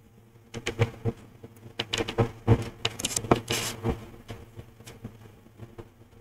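Computer keyboard keys clicking in short, irregular runs of taps.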